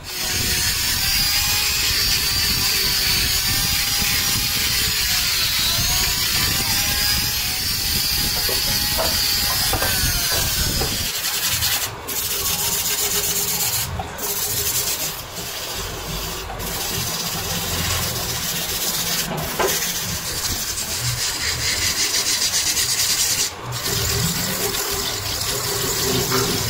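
Sandpaper held by hand against a wooden clock disc spinning on a lathe: a steady rasping rub over the lathe's running. It is broken by a few brief gaps.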